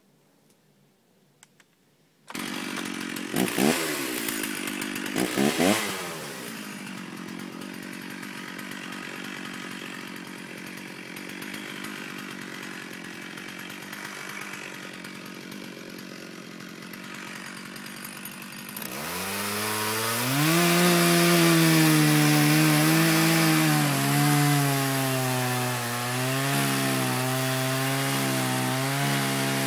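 Stihl chainsaw coming in about two seconds in, blipped twice, then idling. About 19 seconds in it goes to full throttle and cuts into a dead tree, its pitch dipping and recovering under the load of the cut.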